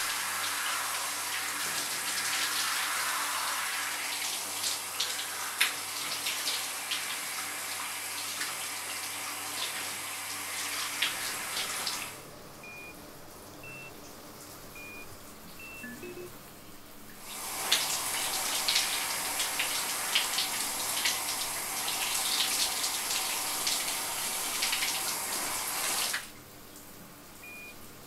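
Shower spray running, in two long stretches that each cut off suddenly. In the quiet gaps between, a few short electronic beeps at slightly different pitches, like a keypad being pressed.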